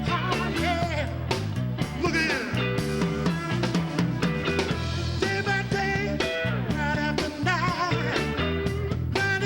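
Rock band playing, instrumental: an electric guitar lead with bent notes over bass and a steady drum beat.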